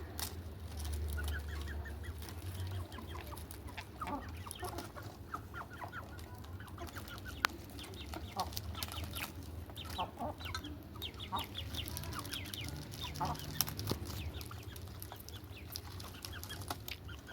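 Indian ringneck parakeet chattering in many short, irregular chirps and clicks.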